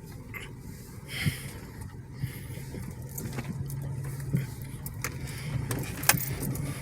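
A car running slowly over uneven ground, heard from inside the cabin: a steady low engine hum with a few short knocks and bumps from the suspension and body.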